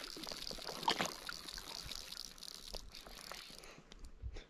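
Water lapping and dribbling close by, with many small irregular splashes and ticks that thin out near the end.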